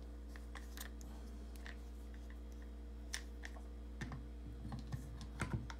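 Light clicks and taps of hard plastic and metal 3D printer parts being handled and set down on a table, scattered at first and coming thicker about four seconds in. A steady low electrical hum runs underneath.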